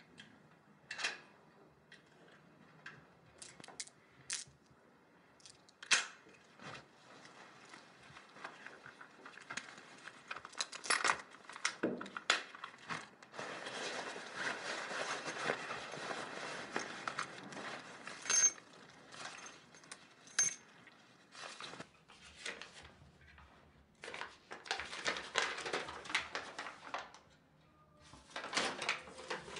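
Rummaging through a bag and clothing: fabric rustling, with scattered small clicks and knocks as objects are handled. Near the end, paper rustles as a sheet is taken out and unfolded.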